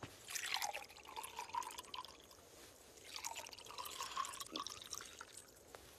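Water poured from a jug into a cup, trickling twice with a short pause between.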